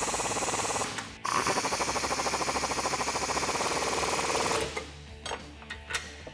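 Impact wrench hammering in two bursts as it runs a bolt up tight in a steel bracket: a short burst that stops about a second in, then a longer one of about three seconds, each a fast, even rattle of blows. A couple of light clicks near the end.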